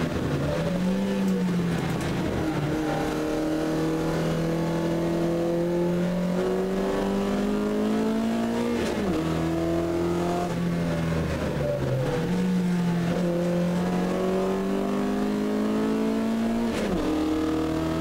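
Talbot Sunbeam 1600 Ti's four-cylinder race engine heard from inside the cabin under hard acceleration, its note climbing steadily through the revs and dropping sharply at each gear change, several times over.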